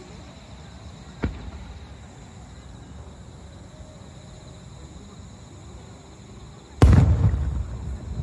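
Aerial fireworks shells bursting: a sharp bang about a second in, then a much louder boom near the end that rumbles and echoes away.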